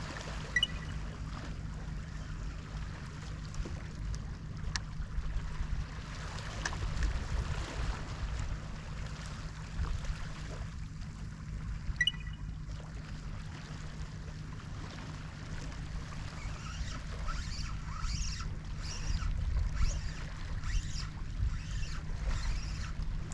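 Sea water washing and lapping against the shore, with wind rumbling on the microphone. Two small sharp clicks sound along the way, one near the start and one about halfway through.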